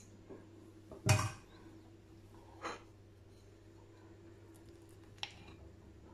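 A metal spoon knocking and clicking against a ceramic plate a few times while cutting a soft gulab jamun in half, the loudest knock about a second in.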